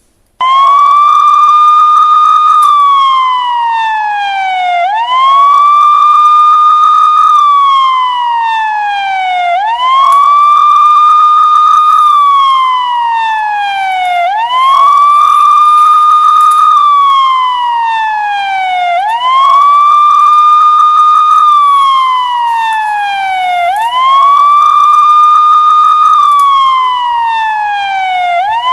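Police-style wail siren cycling about six times: each cycle the pitch climbs quickly, holds for about two seconds, then slides slowly back down before climbing again.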